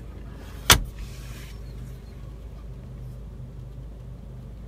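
Glove box lid of a Range Rover Evoque shut with a single sharp knock, a little under a second in, followed by a brief hiss. A steady low hum runs underneath.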